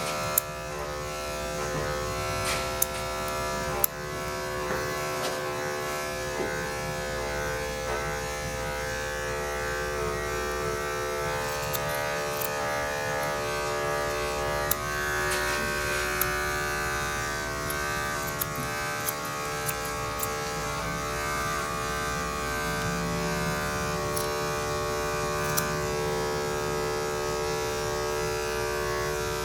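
Electric dog-grooming clippers running steadily, a constant motor hum, with a few sharp clicks near the start.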